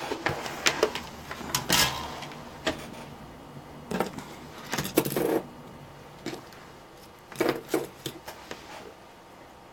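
Irregular clicks, taps and rustles of small tools and wires being handled on a workbench while wire ends are tinned with solder.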